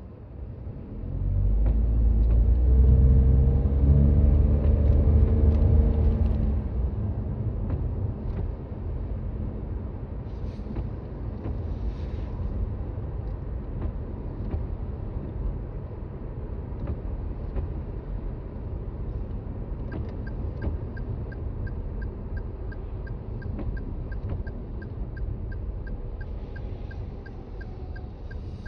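Toyota Raize Z 4WD's 1.0-litre turbo three-cylinder engine pulling away, its rumble rising in pitch and loudest for the first few seconds, then easing into steady driving with road noise. About two-thirds of the way in, a regular ticking at about two a second starts and keeps on.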